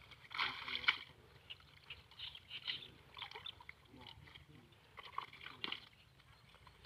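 Water sloshing and splashing in short, irregular bursts.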